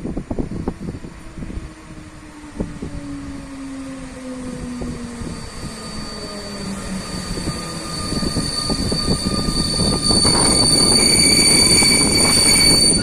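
Train moving through a railway station. Its low hum falls in pitch over the first several seconds, then from about eight seconds it grows louder, with high-pitched steady squealing.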